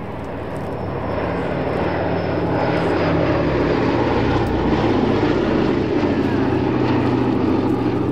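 Boeing B-17G Flying Fortress's four Wright Cyclone radial piston engines droning as the bomber flies past overhead. The sound grows louder over the first couple of seconds, then holds steady and loud.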